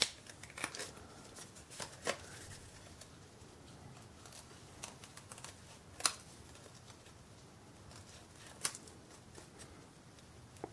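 Small scissors snipping through folded paper in short, scattered cuts with pauses between them, cutting decorative notches into the wings of a paper bat.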